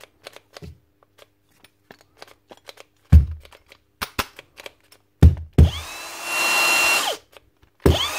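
Bosch GSB 18V-55 brushless cordless drill being triggered and knocked: clicks and several sharp knocks, then about six seconds in the motor whirs up with a rising whine, runs for about a second and cuts out, starting again just at the end. The motor running only in snatches after a knock is the sign of an intermittent bad connection, which turns out to be a poorly soldered motor field wire.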